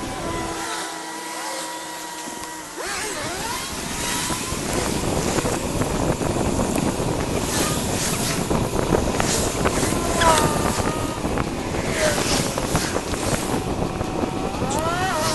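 Wind buffeting the microphone of a camera on a recumbent bicycle as it rides along, with a few brief rising and falling whistles.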